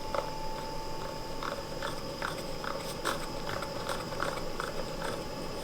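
Godox SL60W LED video light's cooling fan still running after the light is switched off, a steady whine; the fan keeps running while the light is off. Short high chirps come and go over it, roughly two a second.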